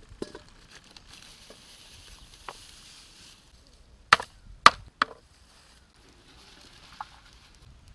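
Chopping strikes: two sharp, loud blows about half a second apart, then a lighter third, with a few faint knocks before and after.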